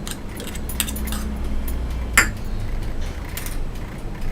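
A spoon clinking against a mixing bowl a few times as an ingredient goes in, with one sharp clink about two seconds in, over a low steady hum.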